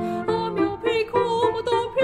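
A woman singing in a classical style with vibrato, accompanied by a grand piano.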